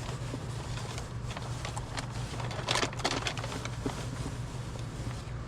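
Hands rustling and crinkling a clear plastic barrier sheet while working a drysuit neck ring into place, with a louder cluster of crinkles about three seconds in. A steady low hum runs underneath.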